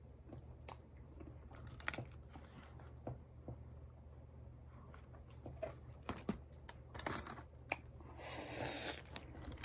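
Quiet eating sounds: scattered small clicks and mouth noises of someone chewing, with a brief rustle about eight seconds in.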